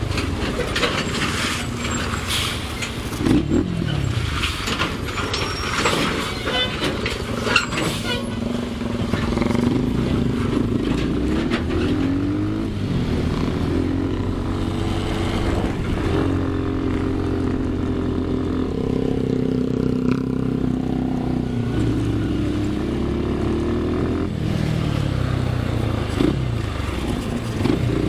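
Trail motorcycle engine running under way, repeatedly rising in pitch as it accelerates and dropping back as it shifts gears. Knocks and rattles come through over roughly the first eight seconds.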